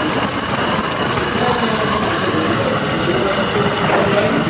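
Live-steam Gauge 1 tank locomotive running under steam, giving a loud, steady hiss.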